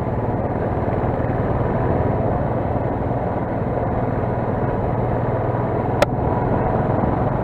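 Vehicle engine running steadily, a constant low hum under road and wind noise, with one sharp click about six seconds in.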